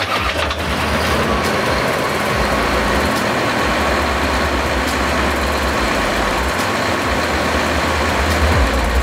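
Diesel engine of a Fendt 9490 X combine, an AGCO Power seven-cylinder 9.8-litre unit, running steadily with a faint steady whine.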